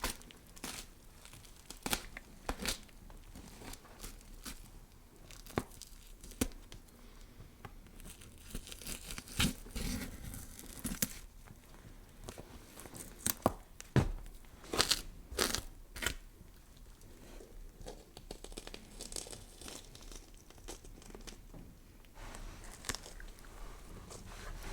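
Flesh scraping and cutting sound effect: irregular wet tearing, crunching and scraping, broken by sharp snaps, busiest about halfway through.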